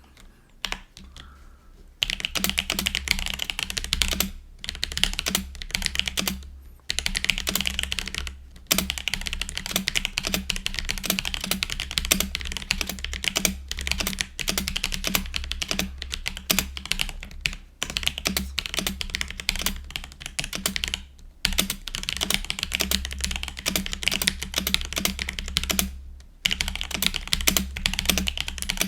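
Fast typing on a GoPolar TKL mechanical keyboard with its stock Geon Azure Dragon tactile switches: a continuous stream of key clacks with a few short pauses, starting about two seconds in. The space bar rattles, a sign of stock stabilizers that are poorly lubed and unbalanced.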